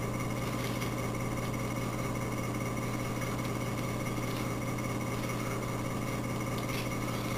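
Steady low hum with fainter higher tones above it, unchanging throughout.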